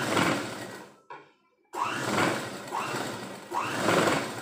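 Domestic sewing machine with an add-on electric motor stitching a sleeve seam through satin fabric. It runs in two bursts with a short stop about a second in, and its pitch rises and falls as the motor speeds up and slows.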